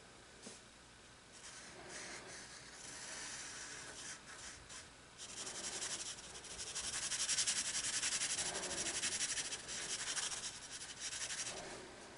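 Graphite pencil scratching across sketchbook paper. There are scattered short strokes at first, then several seconds of rapid back-and-forth shading strokes, the loudest part, which taper off near the end.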